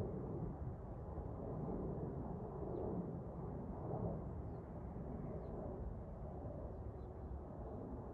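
Steady, low rumble of a distant Embraer E175 airliner's twin turbofan jet engines passing overhead, with a few faint, short bird chirps.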